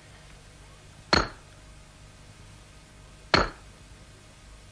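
Blacksmith's hammer striking an anvil twice, about two seconds apart, each blow a sharp metallic clink with a short ring.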